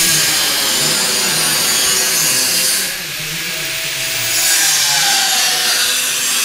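A power tool running under varying load, a loud hiss with a wavering whine underneath. It eases off about three seconds in, then picks up again.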